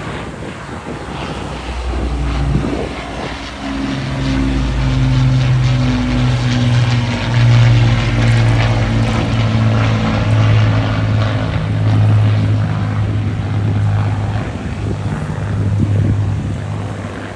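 Avro Lancaster bomber's four Rolls-Royce Merlin piston engines and propellers droning as it flies low past. The sound builds to its loudest about eight seconds in, then holds while the pitch drops slightly as the aircraft moves away.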